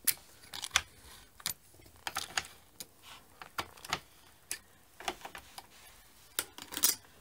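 Latch needles in the plastic bed of an LK150 knitting machine being pushed back by hand, giving a string of irregular sharp clicks and light rattles. The loudest cluster comes near the end.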